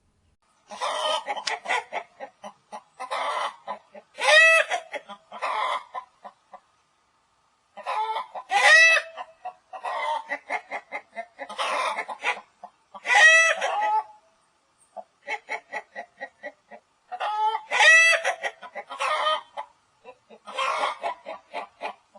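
Chickens clucking and squawking in bursts of several seconds, with short pauses between. Each burst mixes quick clucks with a few loud, drawn-out calls.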